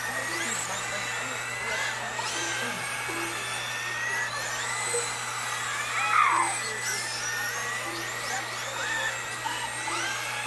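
Several radio-controlled dirt-oval modified cars racing, their motors whining up and down in pitch as they accelerate and slow around the track. About six seconds in, one car passes close with a louder whine that falls in pitch.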